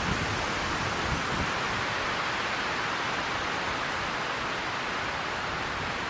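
Steady rushing outdoor background noise with no bird calls or tapping standing out.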